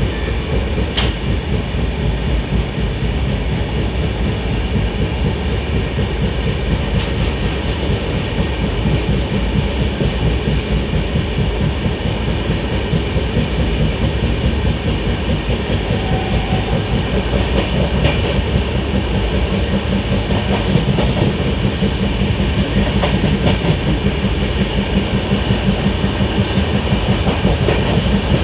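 Indian Railways express passenger coach running on the line, heard from its open door: a steady rumble of wheels on rails that grows a little louder near the end.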